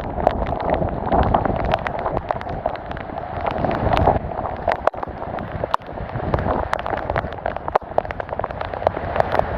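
Rain falling: an even rush with many irregular, sharp drop taps striking close by, and a fluctuating low rumble like wind.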